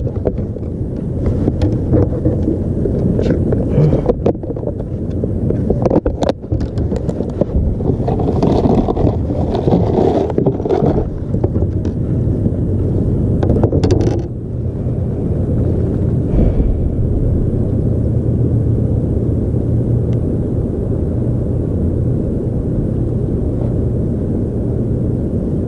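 Steady low drone of a motorboat's engine running, mixed with wind buffeting the microphone. Scattered scrapes and clicks of handling fall in the first half, and the drone runs on alone after that.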